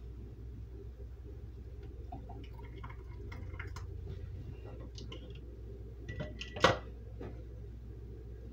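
Hot jam being ladled through a plastic canning funnel into a glass mason jar: small scrapes and clinks of the ladle against the pot, funnel and jar, with the jam dripping and pouring. One sharp knock about two-thirds of the way through is the loudest sound, over a steady low hum.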